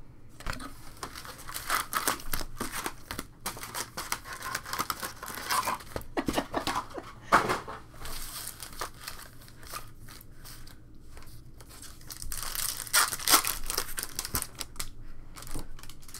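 Foil wrapper of a 2020 Topps Stadium Club baseball card pack being torn open and crinkled by hand, in several louder bouts of crackling.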